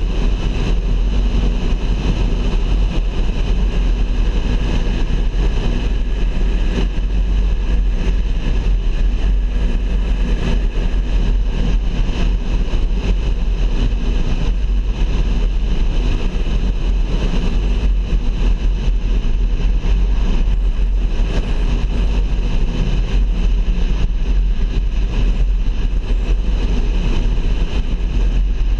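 Steady driving noise of a car on the road: low engine and tyre rumble that stays even throughout.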